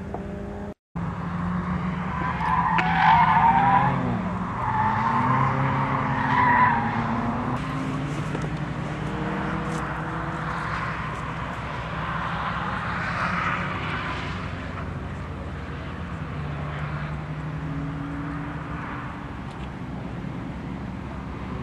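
Cars lapping a road racing circuit, their engine notes rising and falling with throttle and shifts. Tires squeal loudly and waveringly through a corner from about two to seven seconds in, then the engines run on more steadily.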